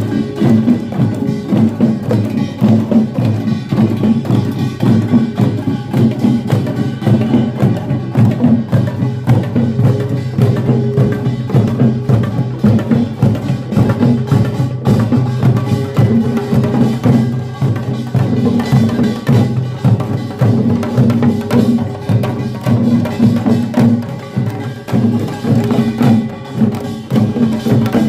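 Korean pungmul farmers' band playing: a loud, fast, unbroken rhythm of drums and ringing gongs.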